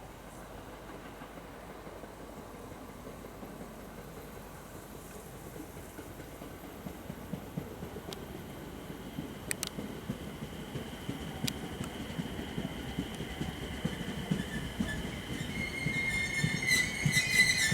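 A local train approaching and braking into a station: a rumble that grows steadily louder, a couple of sharp clicks, then the wheels start a high squeal in the last couple of seconds.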